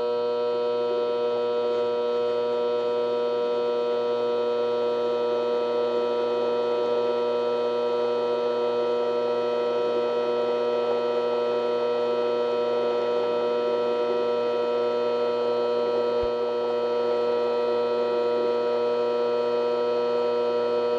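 A 7x12 Vevor mini lathe running steadily at speed, its motor and spindle drive giving a constant, even whine that does not change.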